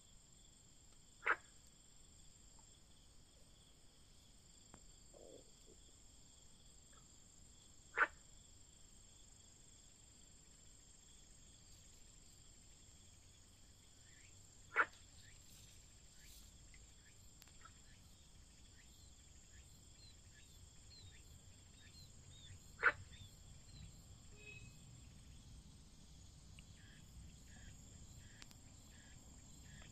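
A faint, steady chorus of insects trilling at several pitches. A short, sharp chirp or click, louder than the chorus, cuts in four times, about seven seconds apart.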